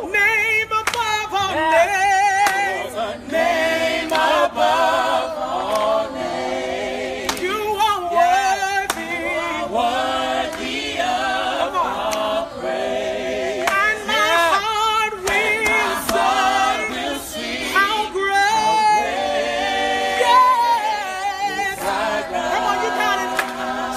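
A group of people singing a worship song together without instruments, with voices wavering in vibrato and carrying on without a break.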